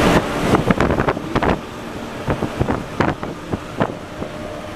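Road and wind noise inside a moving vehicle's cab, with a quick run of short, sharp knocks or rattles over the first few seconds.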